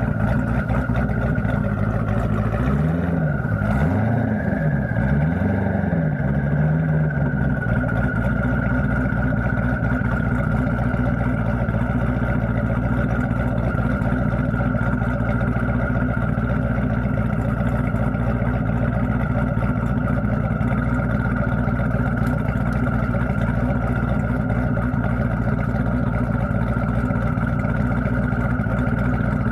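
Dodge Challenger engine running steadily at idle, its pitch rising and falling about three times a few seconds in, then holding even.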